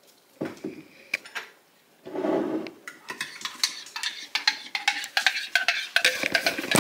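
Cutlery and crockery clinking: a few sharp clicks at first, then rapid, increasingly dense clinks with a ringing, metal-on-dish quality in the second half.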